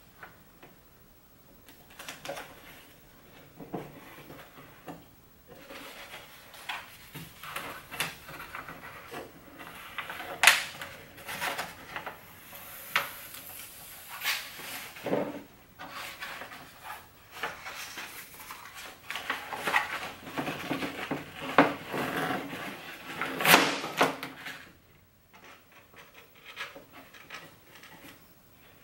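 Carbon fiber vinyl wrap film and its paper backing being handled: irregular rustling, crinkling and rubbing as the backing is peeled away and the film is pressed down by hand over a console piece, with a few sharper crackles, the loudest about ten and twenty-three seconds in.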